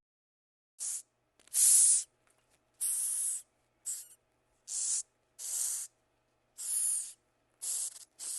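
A series of about nine short, sharp hisses at irregular intervals, each lasting a fraction of a second, with silence between them.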